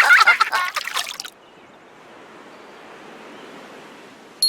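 Cartoon soundtrack: music with voices cuts off abruptly about a second in. A faint, steady water-like hiss follows.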